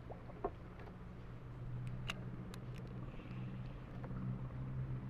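A motor running steadily, a low even hum, with a few light clicks.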